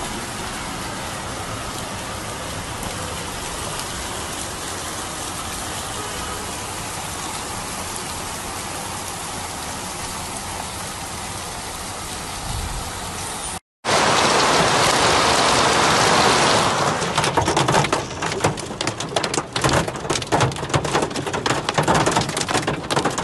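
Heavy rain falling steadily, with floodwater washing over a street edge. After a cut about 14 seconds in, louder storm noise heard from inside a car: rain and hail pelting the roof and windshield in a dense, rattling patter of impacts.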